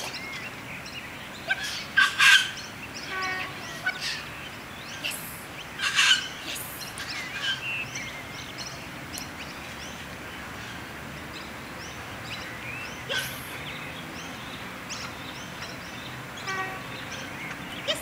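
Wild birds calling and chirping in scattered short notes, loudest in a few sharp calls in the first several seconds, over steady outdoor background noise.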